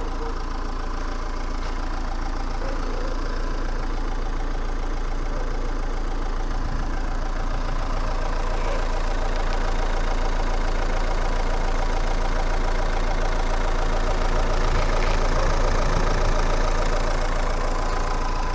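Renault 1.9 dCi diesel engine running steadily, on a newly fitted high-pressure fuel pump and timing belt; the repaired engine runs normally.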